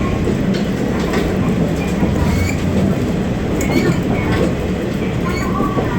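KiHa 40 diesel railcar running along the line: a steady low rumble of engine and wheels, with scattered clicks over the rail joints and a few faint short squeaks.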